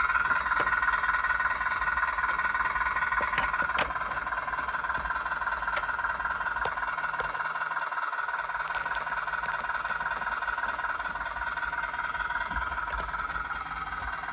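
RC sound module playing a diesel engine running steadily through a small, cheap speaker, heavy in the mid-range, with light ticks over it. It drops a little in level about four seconds in.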